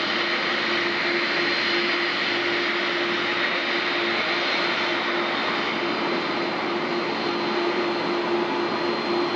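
Jet engines of Air Force One, a VC-25A (Boeing 747), running at taxi power as the four-engine jet rolls slowly across the apron: a steady rush with a held low hum and a faint high whine.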